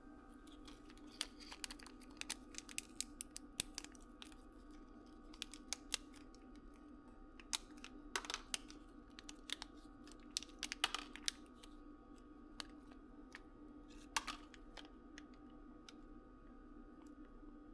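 Faint, irregular light clicks and taps, with a few louder clusters of quick clicks, over a steady low hum.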